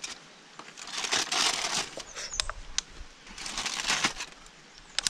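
Aluminium foil crinkling as a cooking packet is pulled open by hand, in two rustling spells with a few sharp clicks between them.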